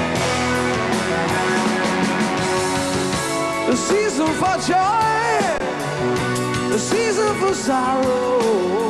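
Live rock band playing, with electric bass and keyboards. A man's voice comes in singing about four seconds in.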